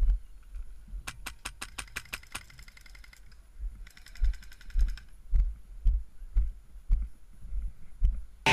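Airsoft gun, HPA-powered with a Polar Star engine, firing a rapid string of about a dozen sharp shots a second in, then a second, denser burst about four seconds in. Under the shots are regular low thuds of running footsteps.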